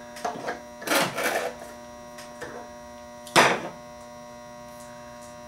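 Handling noises from the metal reel table of a Teac A3340 reel-to-reel deck being worked by hand at its spindle hub: a few clinks and scrapes, then a sharp knock about three and a half seconds in. A steady electrical hum runs underneath.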